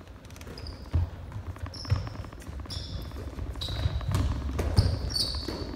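A basketball thudding on a hardwood gym floor, with short high-pitched sneaker squeaks as players run and cut, coming thicker in the second half.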